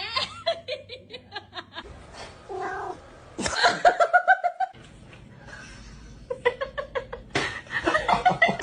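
A cat yowling in drawn-out, wavering calls, with a person laughing.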